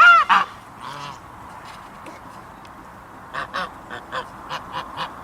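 Goose honking: a loud, nasal honk right at the start, then from about three seconds in a quick run of short, softer calls.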